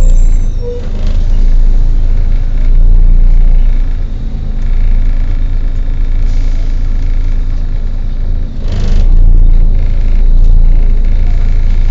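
Volvo B7TL double-decker bus's straight-six diesel engine running with a heavy, steady rumble, with the hoover-like whine of its cooling fan. A short hiss of air, like an air-brake release, comes about nine seconds in.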